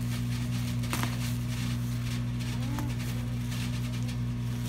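Scissors cutting through bubble wrap: a sharp click about a second in and faint crinkling, over a steady low hum that is the loudest sound throughout.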